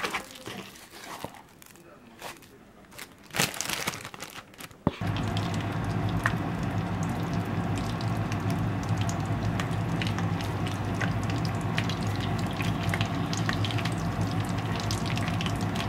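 Quiet scraping of chopsticks mixing mashed potato in a bowl, with a couple of knocks. About five seconds in, hot oil in a frying pan starts sizzling and crackling steadily as potato batter is piped into it, over a steady low hum.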